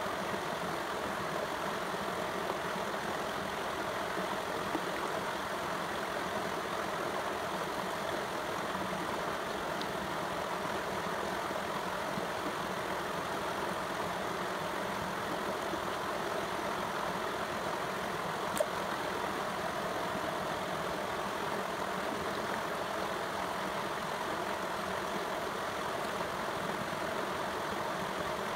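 Shallow stream flowing over stones and sand, a steady, even rush of water, with one faint click about two-thirds of the way through.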